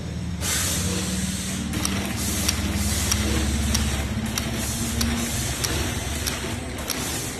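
Facial-mask sheet suction-counting machine running: a steady hiss of air starts about half a second in, with a sharp click about every two-thirds of a second over a low machine hum.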